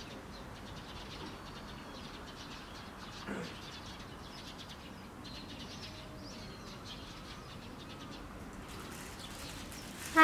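Quiet outdoor ambience with small birds chirping faintly over a steady low background hiss, and one brief louder sound about three seconds in.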